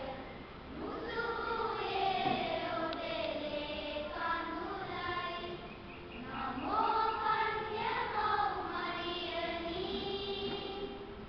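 Children's choir singing in long held notes, phrase by phrase, with a short breath break about half a second in and another about six seconds in.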